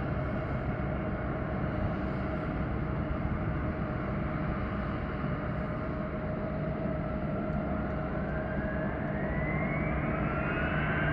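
Boeing 757 freighter's twin Rolls-Royce RB211 turbofans running with a steady hum, then a whine rising in pitch from about seven seconds in as the engines spool up to takeoff power.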